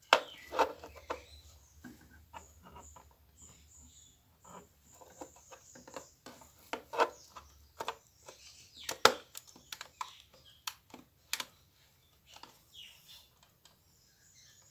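Irregular plastic clicks, taps and rattles as a battery pack is fitted by hand into the battery compartment of a fixed-wireless phone-router, several sharp knocks standing out.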